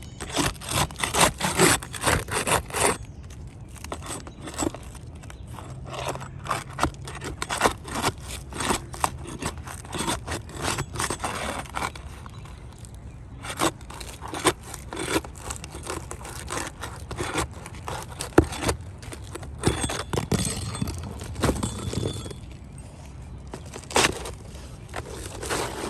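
Repeated irregular scraping and sharp clicks of hands-on work, busiest in the first few seconds.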